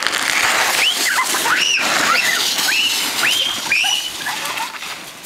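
Sled sliding fast over snow with a steady hiss, while the children riding it let out a string of short, high-pitched squeals; the sound fades toward the end as the sled moves off.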